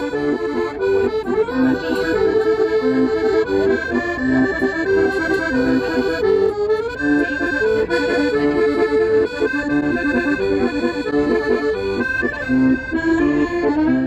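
Piano accordion playing a continuous melody over lower accompanying notes.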